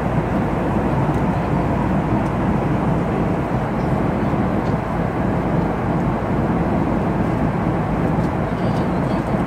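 Steady cabin noise of an airliner in flight: the even rush of engines and airflow heard from inside the passenger cabin.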